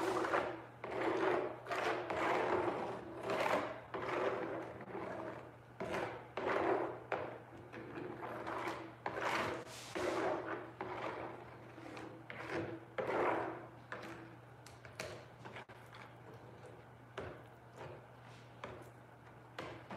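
Plastic spreader being pushed back and forth through a fresh coat of epoxy resin on a painting, making repeated scraping strokes about one or two a second, quieter in the last few seconds.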